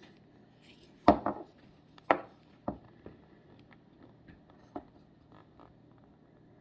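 Victorinox Alox Electrician Swiss Army knife's tools being opened and let close, clicking and snapping shut on their strong backsprings. The loudest snaps come about one and two seconds in, with lighter clicks after.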